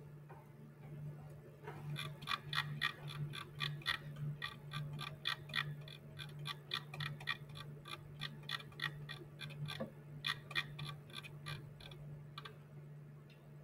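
Computer mouse scroll wheel clicking in quick runs, about five clicks a second, starting about two seconds in and stopping near the end. A steady low electrical hum runs underneath.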